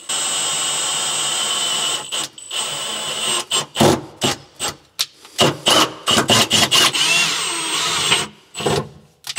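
Cordless drill with a small bit boring pilot holes in a car's sheet-steel trunk floor pan. It runs steadily for about two seconds, then goes in a string of short trigger bursts with one longer run near the end.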